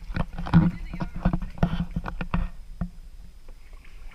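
Kayaking in a plastic sit-on-top kayak: a quick run of knocks and thuds from the paddle and gear bumping the hull, about seven in three seconds, then it goes quieter.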